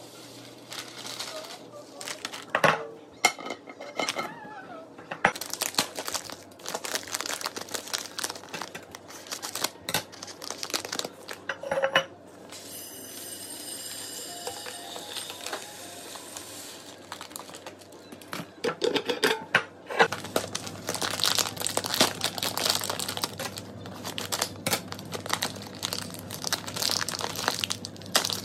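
Dry grains pour from plastic bags into glass storage jars amid plastic bag crinkling. Red lentils pour in near the start, jasmine rice streams into a tall glass jar as a steady hiss about halfway through, and a long stretch of dense crinkling of a plastic rice bag follows near the end.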